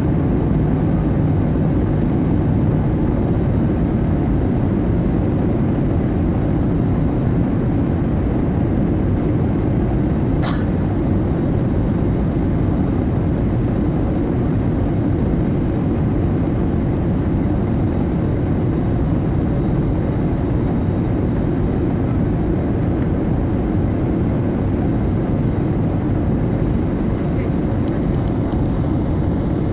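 Steady cabin noise inside an Airbus A320neo airliner: a low rumble of airflow and its CFM LEAP-1A turbofan engines as it descends on approach. A single brief click sounds about ten seconds in.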